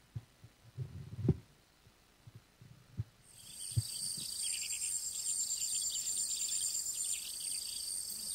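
Crickets and other insects chirring in dry grass at night, starting about three seconds in: a steady high chirr with a pulsing trill and quicker chirps beneath it. A few soft low thumps come before it.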